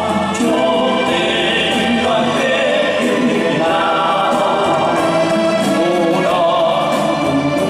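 A man sings a song into a microphone over instrumental accompaniment.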